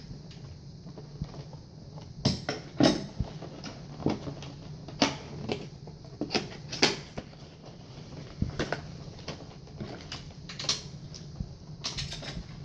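Headset packaging being opened and handled: irregular clicks, knocks and rustles, a few sharper ones standing out, over a faint steady low hum.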